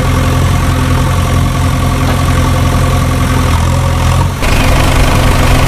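Heavy diesel engine idling steadily, a low even hum made of several stacked tones. About four seconds in the sound changes abruptly and turns slightly louder and rougher.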